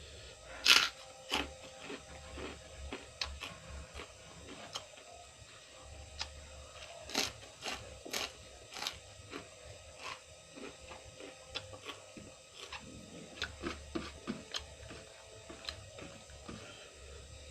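Crunchy biting and chewing of raw cucumber close to the microphone: irregular sharp crunches, the loudest about a second in, over a faint steady hum.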